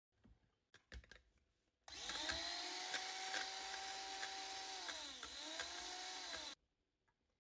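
A few light clicks, then a small electric motor runs with a steady whine for about four and a half seconds, dips in speed briefly near the end and picks up again before cutting off suddenly.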